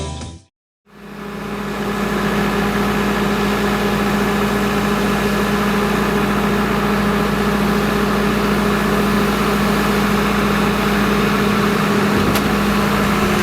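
Skid steer loader's engine running steadily, with a constant low hum, after a short burst of background music fades out in the first second.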